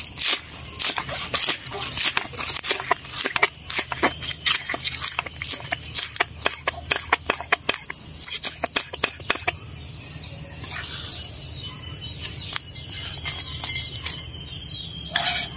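Kitchen knife chopping green onions on a wooden cutting board: quick, even knocks of the blade on the board, about three or four a second, stopping about nine seconds in. After that a steady high-pitched chirring goes on, with one more knock near the end.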